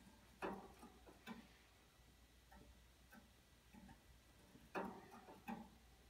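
Near silence broken by faint, irregular clicks and ticks, a handful of them, the two clearest about half a second in and just before the end.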